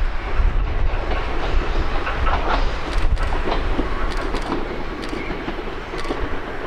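Ichibata Electric Railway electric train running along the track, its wheels clicking over rail joints several times.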